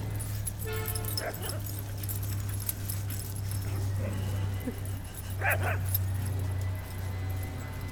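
Small dogs playing, giving a thin high yelp about a second in and a short sharp bark about five and a half seconds in, over a steady low hum.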